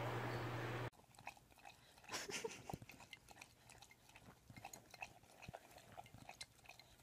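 A steady hum cuts off about a second in. It is followed by faint, irregular clicks and scrapes of a dog's teeth biting and mouthing the rim of a clear drinking cup.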